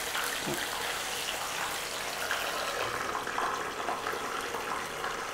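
Hot oil sizzling steadily around batter-coated sweet corn kernels as they deep-fry, with faint crackling pops because the boiled kernels are still wet.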